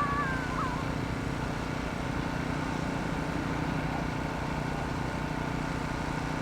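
A steady low engine rumble with a pulsing hum under a wash of outdoor noise, and a brief wavering high tone in the first second.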